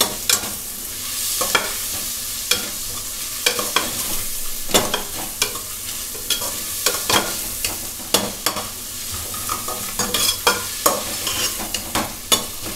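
Sliced onions, green chillies and green peas sizzling in oil in a pressure cooker pan, sautéing until they wilt and shrink. A steel spoon stirs them, scraping and clicking against the pan about once or twice a second.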